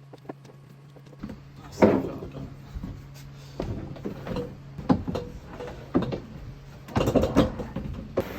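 Irregular knocks and clunks of objects being handled and set down, loudest about two seconds in, over a low steady hum that stops about seven seconds in.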